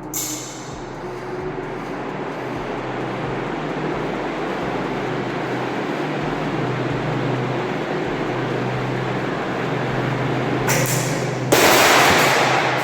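Ceiling fan running fast: a steady hum and a whooshing noise that slowly build, with faint regular knocks. Near the end a sudden, much louder noisy burst cuts in.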